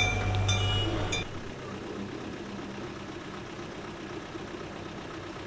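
Fire engine bell ringing over a low engine hum, both stopping abruptly about a second in. A quieter steady low hum from a small model motor follows as a model track trolley runs along the rails.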